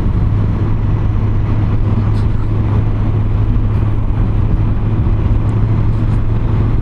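Yamaha XJ900 Diversion's inline-four engine running at a steady cruise, with wind and road noise rushing past.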